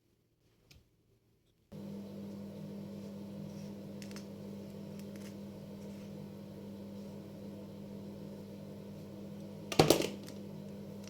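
A household appliance's motor starts humming steadily, with a strong low tone, just under two seconds in after near silence. A short loud clatter comes near the end.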